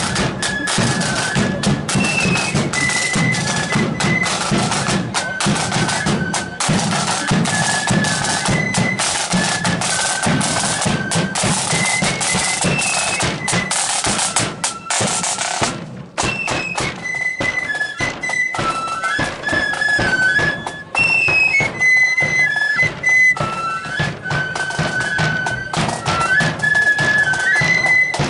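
Marching flute band playing: a melody on flutes over rapid side-drum rolls and bass-drum beats. About halfway through the sound briefly dips, then the flutes come through more clearly.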